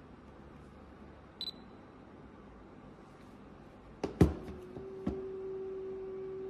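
Olympus OM-D E-M10 Mark III mirrorless camera giving a short beep, then sharp shutter-release clicks, after which a steady motor-like hum starts and keeps running: an abnormal noise from the camera after it was dropped on concrete, a sign of internal damage.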